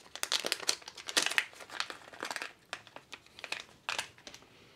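Crinkling of a shiny metallised anti-static bag being handled and opened by hand: a quick run of crackles, densest in the first half, that thins out and stops about four seconds in.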